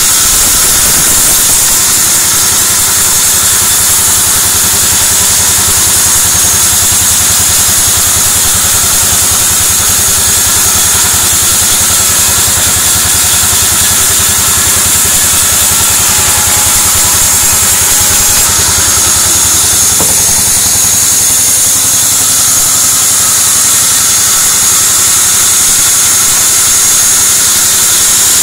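Large sawmill band saw ripping a beam of white teak (gmelina): a loud, steady machine noise with a bright high hiss of the blade running through the wood.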